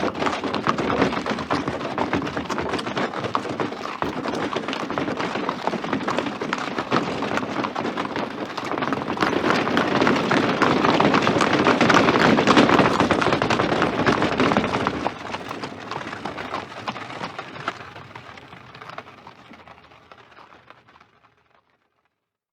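A herd of horses galloping, a dense clatter of many hoofbeats that grows louder toward the middle and then fades away over the last several seconds.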